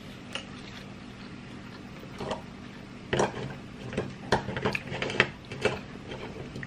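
A series of sharp clinks and knocks of dishes and utensils on a dining table, bunched in the second half, over a steady low hum.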